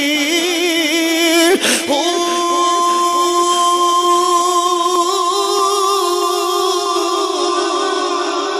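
A man singing a line of Punjabi Sufi poetry into a microphone, unaccompanied. Quick wavering turns give way, about two seconds in, to one long held note with slight vibrato that fades near the end. A short click comes about a second and a half in.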